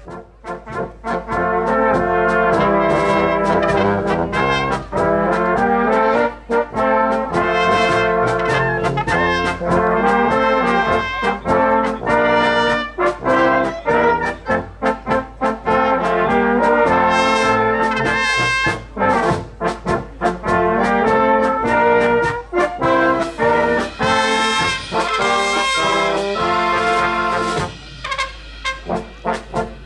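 Brass band music: horns playing a melody with a steady rhythm.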